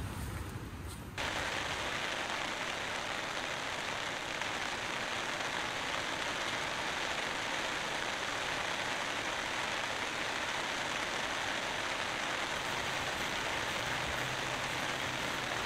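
Steady heavy rain: an even hiss at a constant level. It begins abruptly about a second in, replacing a lower rumble.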